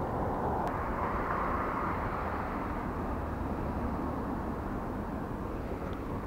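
Steady outdoor rumble like distant traffic, a little stronger in the first couple of seconds and then slowly fading, with one faint click about a second in.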